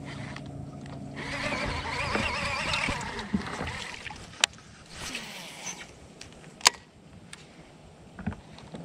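A baitcasting reel's spool whirs with a wavering pitch for about two seconds during a cast. Two sharp clicks follow a few seconds apart as the reel is worked for the retrieve.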